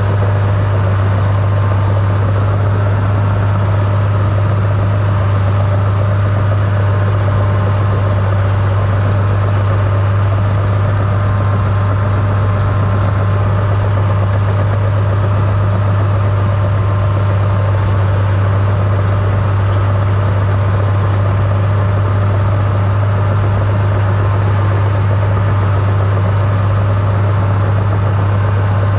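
Small crawler dozer's engine running steadily at a constant speed, with a strong low hum, as the machine plows snow with its blade.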